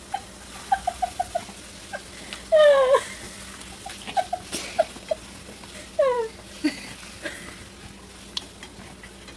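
Domestic hen clucking in short, repeated low notes as she pecks around, with two louder, longer cries falling in pitch, about two and a half and six seconds in.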